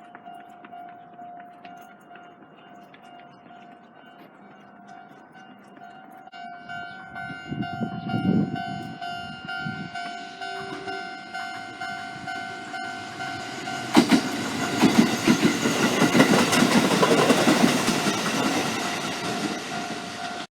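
Japanese level-crossing warning bell ringing steadily while a Sanyo Electric Railway train approaches and then passes close by from about halfway through, its wheels clattering over the rail joints.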